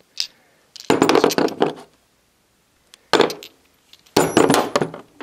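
Chrome steel sockets and an extension clinking against each other and the plastic socket-set case as they are picked out by hand, three spells of clinking: about a second in, at about three seconds, and around four seconds in.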